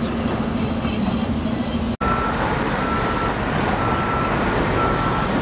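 Street traffic noise from cars and a bus moving slowly along a city street. After a cut about two seconds in, a high electronic beep repeats about once a second, like a vehicle's reversing alarm.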